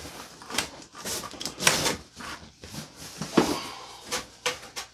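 Long cardboard crossbow box being handled: its flaps scraping and rustling, with a string of knocks and thuds as it is pushed shut and lifted upright, the loudest a little past halfway.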